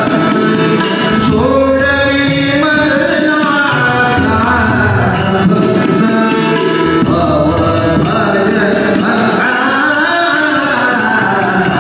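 A man singing a devotional lavani, a Marathi folk song, live into a microphone, with pitch bends and held notes, over instrumental accompaniment.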